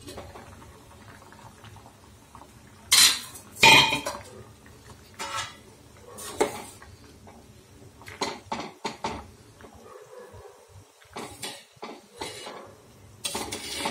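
Stainless steel pot, lid and spoon: two loud metal clanks about three and four seconds in, then lighter clinks and scraping as a steel spoon stirs a thick curry in the steel pot.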